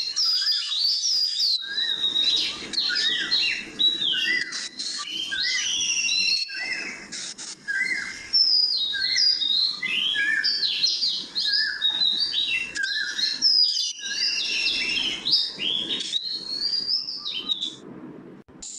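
A dense chorus of songbirds chirping and singing, many quick rising and falling calls overlapping, over a low background hum. It breaks off briefly a few times.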